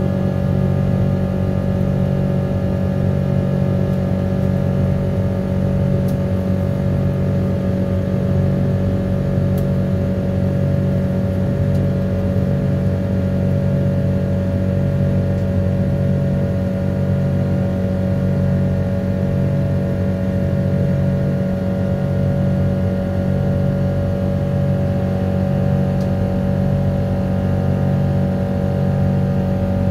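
Boeing 777-200's Rolls-Royce Trent engines heard inside the passenger cabin in flight: a steady low drone with a slow throb about once a second and a steady higher hum above it.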